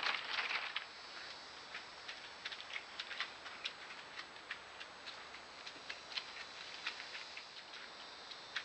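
Scattered, irregular sharp clicks and ticks, a few a second, after a short rustling noise at the very start.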